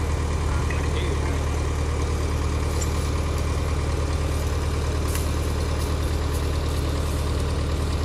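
John Deere cable skidder's diesel engine idling steadily with a deep, even hum.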